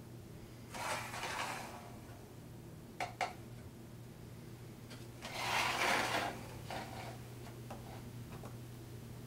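Rubbing and scraping sounds in two bursts, one about a second in and a louder one around six seconds, with two sharp clicks close together between them, over a steady low hum.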